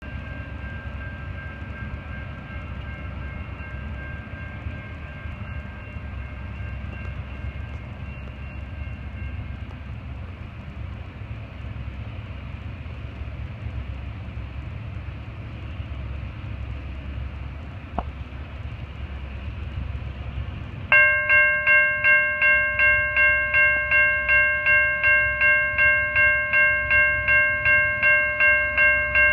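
A distant train horn sounds faintly for the first ten seconds or so over a low rumble. About 21 seconds in, the grade-crossing warning bells start ringing, two to three strikes a second, as the crossing activates for an approaching train.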